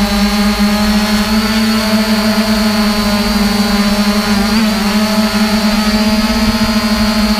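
Quadcopter drone's motors and propellers humming steadily in flight, close to the microphone, with a thin high whine above the hum.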